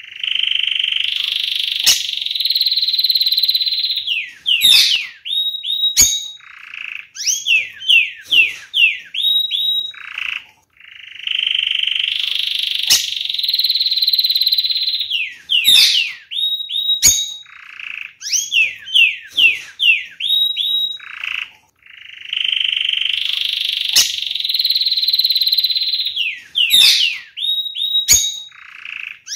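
Domestic canary singing: a long, fast trill, then quick falling whistled notes and a low closing note, the same song phrase three times over. A few sharp clicks sound within the song.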